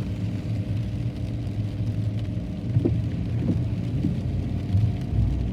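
Steady low rumble of a car on the road, engine and tyre noise with no pass-bys standing out.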